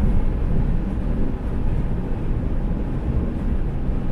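Camper van driving along a straight road, heard from inside the cab: a steady low rumble of engine and tyre noise.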